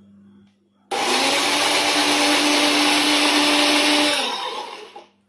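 Electric mixer-grinder pureeing mango pieces in its jar: the motor starts suddenly about a second in, runs at a steady whine for about three seconds, then is switched off and winds down.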